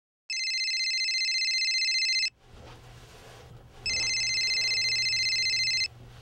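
Mobile phone ringing with an electronic ring: two rings of about two seconds each, with a pause of about a second and a half between, over a low steady hum.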